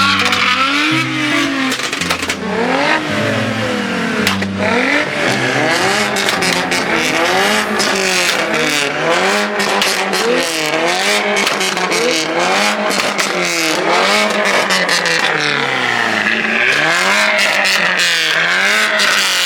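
A car engine being revved up and down over and over, its pitch climbing and dropping about once a second, with many sharp cracks and pops throughout.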